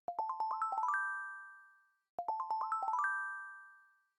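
Short music jingle: a quick rising run of about eight bell-like pitched notes that rings out and fades, played twice about two seconds apart.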